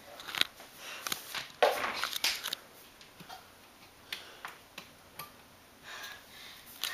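Scattered light knocks and clicks with shuffling, and a louder rustle about two seconds in.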